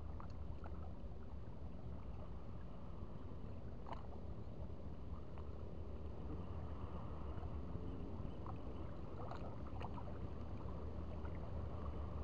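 Faint, steady low rumble of open-air sea shore: wind on the microphone and calm sea water washing against breakwater rocks, with a few faint clicks.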